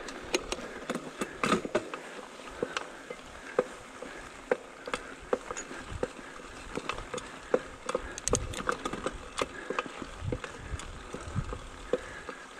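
Mountain bike ridden over a bumpy grass track: irregular clicks and rattles from the bike's chain and parts, over a steady rustle of the tyres through the grass.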